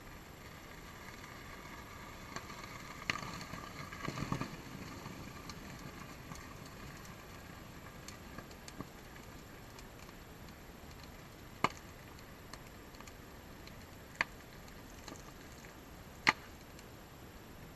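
PETN booster of a cut munition tip burning: a hissing flare with crackles over the first few seconds, then quieter burning broken by three sharp pops as the flames die down.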